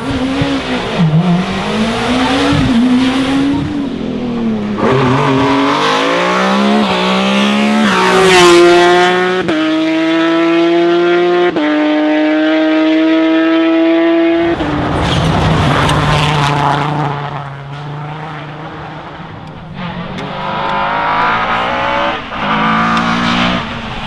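Rally cars at full throttle, one after another: each engine's revs climb hard through a gear and drop back at every upshift.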